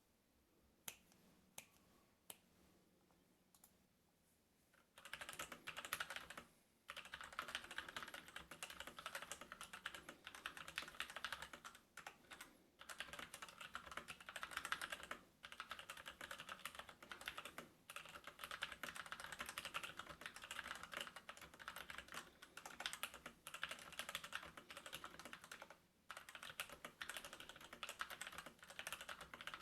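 Typing on a Krux Atax Pro RGB mechanical keyboard with stock Outemu Brown tactile switches: a few single key clicks, then from about five seconds in a fast, continuous clatter of keystrokes with brief pauses now and then.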